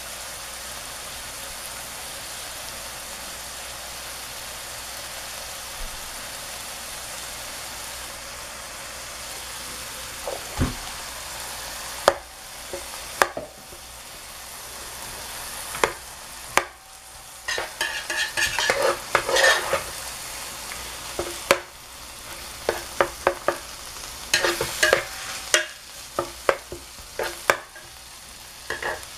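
Egg, ground meat and vegetables sizzling in an electric pan. About twelve seconds in, a metal ladle begins knocking against the pan, then scrapes and stirs in quick bursts with squeaky metallic scrapes as cooked rice is mixed into the frying egg.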